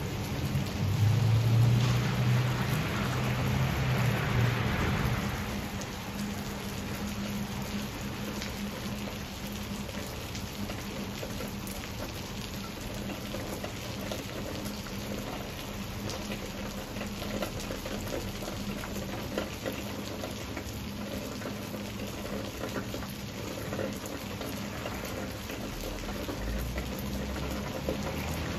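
Steady rain falling on foliage, with a low rumble of thunder over the first few seconds that dies away about five seconds in.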